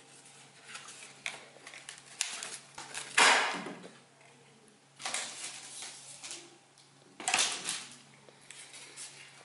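Stiff cardboard being folded and handled: a series of dry rustling scrapes, the loudest a little over three seconds in, with others about five and seven seconds in.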